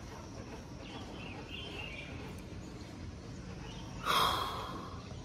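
Outdoor ambience with a steady background hum and faint bird chirps, broken by a short, louder rushing noise about four seconds in.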